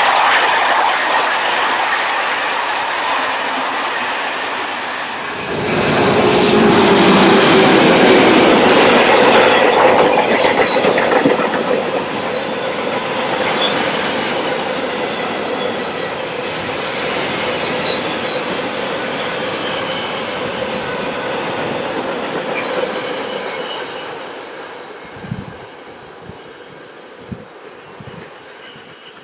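SNCF passenger coaches rolling past. From about five seconds in, a freight train of covered wagons and tank wagons passes with a steady rumble and clatter of wheels on the rails. The sound fades near the end as the last wagons draw away.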